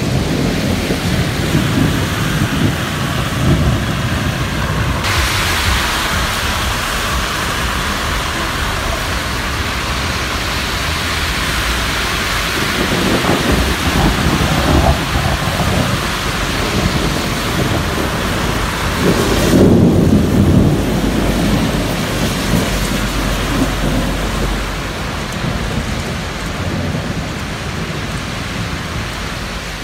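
Steady rain falling during a thunderstorm, with rolling thunder rumbling at the start, again around the middle, and loudest about twenty seconds in.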